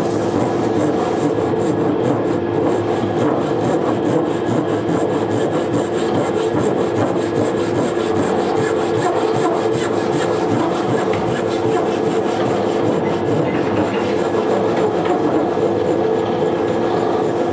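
Fine-toothed handsaw cutting into the end of a hardwood leg to form a tenon, in repeated rasping strokes, over a steady background hum.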